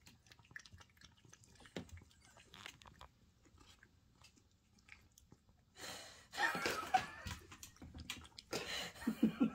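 A cat lapping liquid from a stainless steel bowl, a quick run of small wet clicks from its tongue. The sound gets louder and noisier in the second half.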